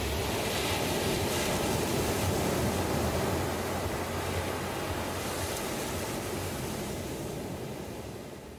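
Sea surf washing onto a sandy beach, a steady rushing wash that fades out near the end.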